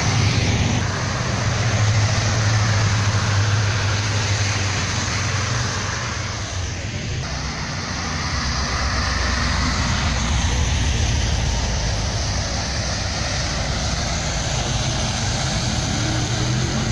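Classic American cars' engines rumbling as they drive past one after another, the low rumble swelling and easing as each car goes by, over the murmur of a crowd.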